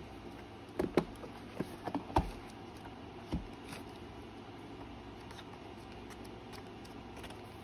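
Pages of a paper ephemera book being flipped and handled, a few sharp paper flaps and rustles in the first few seconds. After that only a faint steady background hum.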